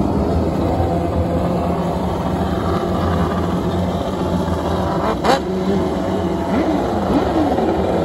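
Several winged 600cc micro sprint cars with motorcycle engines running together, their engine notes rising and falling as the drivers work the throttle. About five seconds in there is one brief sharp pop.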